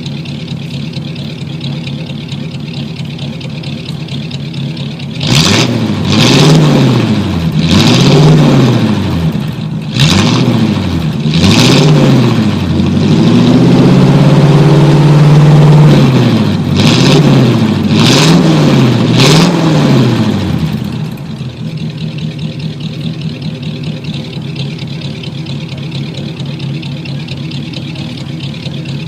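A 1949 car's engine idling, then revved again and again in quick blips, about a dozen rises and falls in pitch, with one rev held for a couple of seconds midway, before it settles back to a steady idle for the last several seconds.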